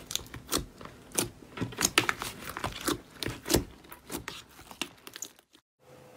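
Hands squeezing and pulling thick slime in a plastic basin: irregular sharp crackles and pops of trapped air, stopping shortly before the end.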